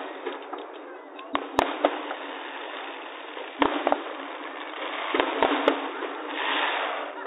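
Aerial fireworks going off: sharp bangs in small clusters, a few at a time, about a second and a half in, again near the middle and around five seconds in, over a continuous noisy hiss that swells near the end.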